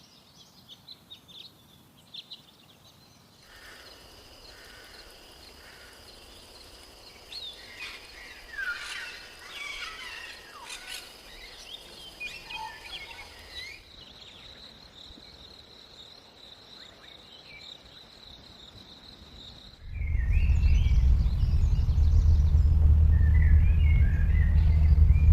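Wild birds chirping and calling, in short varied notes over a steady high-pitched insect-like drone. The drone continues alone for a few seconds. Near the end a loud low rumble comes in suddenly, with bird chirps still heard over it.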